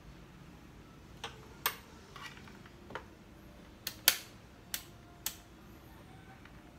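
About eight sharp plastic-and-metal clicks and taps at uneven intervals as a digital multimeter and its test probes are picked up and handled, the loudest about four seconds in.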